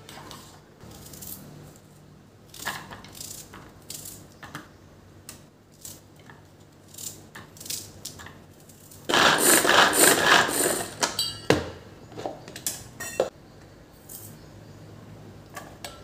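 Manual pull-cord onion chopper whirring and rattling for about two seconds as its blades spin through onion pieces in the plastic bowl, ending in a quick run of clicks. Before it come light taps and clicks from a knife cutting onion and pieces dropping into the bowl.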